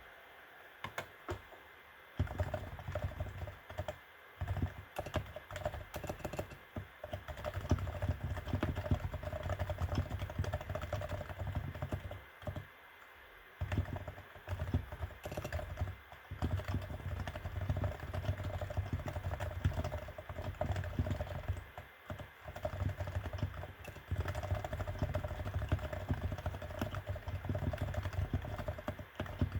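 Realforce R2 TKL keyboard with silent 45 g Topre switches being typed on: a few single keystrokes at first, then fast continuous typing from about two seconds in, with brief pauses around 12 and 22 seconds in.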